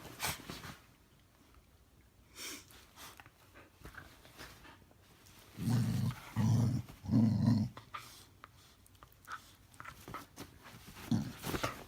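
Norwegian Elkhound making odd playful vocal noises: three short, low grumbling sounds in quick succession about halfway through, with scattered short faint noises around them.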